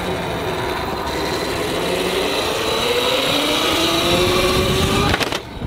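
CAKE electric motocross bike's electric motor whining under acceleration, the whine rising steadily in pitch as the bike picks up speed, then dropping away suddenly about five seconds in.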